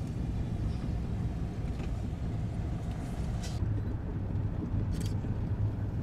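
Steady low road and engine rumble heard from inside a moving car, with two brief high hisses about three and a half and five seconds in.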